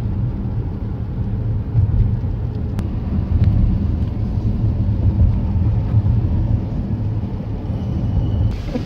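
Steady low rumble of a car's engine and tyre noise heard from inside the cabin while driving on a wet highway.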